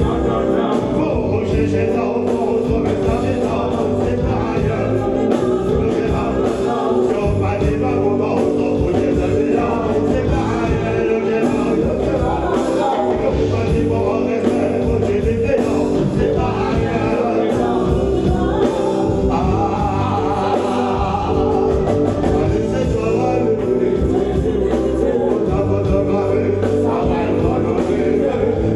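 Live reggae band playing, with drums, electric guitar and keyboard under a lead singer and backing vocalists.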